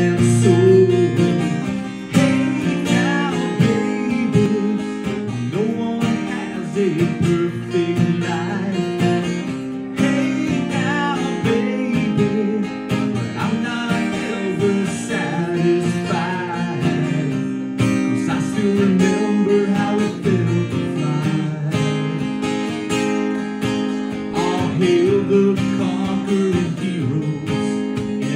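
Live solo performance: an acoustic guitar strummed steadily, with a man singing along.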